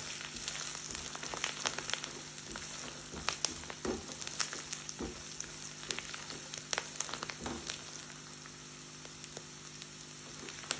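Onions, whole spices and curry leaves sizzling in mustard oil in a non-stick frying pan over low heat, with scattered pops and crackles as the curry leaves spatter. A silicone spatula stirs and scrapes through the mixture, giving a few soft knocks.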